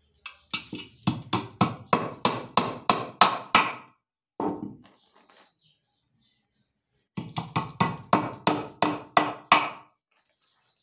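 Hammer driving nails into the top of a solid wood box frame: two runs of quick, even blows, about three to four a second, with a single knock between them.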